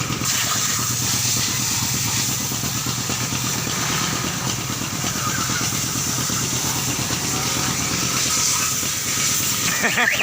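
A motor runs steadily with a low pulsing beat and a constant hiss over it. Just before the end, a loud warbling tone that rises and falls starts up.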